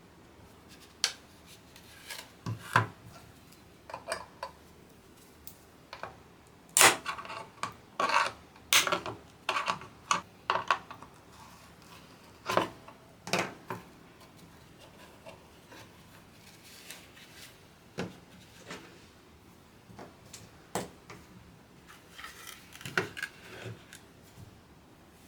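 Small hard parts being handled by hand during keyboard assembly: irregular clicks, taps and rubbing, busiest in the middle and thinning out toward the end.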